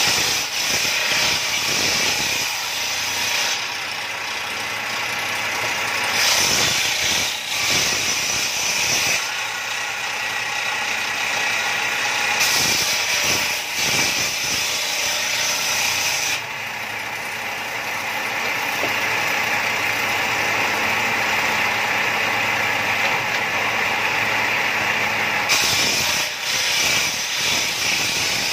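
Bench circular saw ripping strips of wood, the blade cutting in four spells of a few seconds each, with the saw running steadily between passes.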